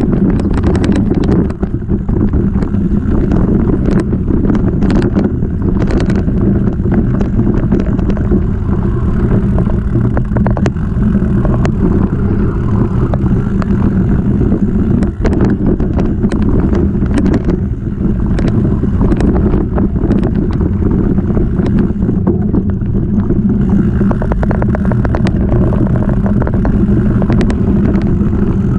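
Bike ridden fast over a dirt trail and then wooden boardwalk: steady tyre rumble with frequent sharp rattles and knocks from the frame, and wind on the microphone.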